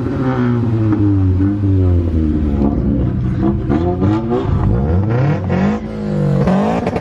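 Car engine being revved and accelerated, its pitch climbing and falling several times. It drops briefly about six seconds in, then climbs again.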